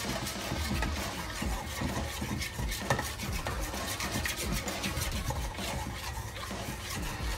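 A spoon stirring a wet butter-and-oil mixture in a mixing bowl: continuous scraping and rubbing with small knocks against the bowl.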